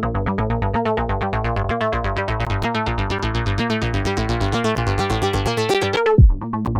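Electronic dance music built from sample loops in the Remixlive app: a fast, even synth pulse over bass. A rising build cuts off about six seconds in and gives way to deep falling bass hits.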